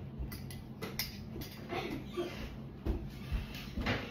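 Scattered light knocks and clicks of objects being handled, several short ones spread across a few seconds.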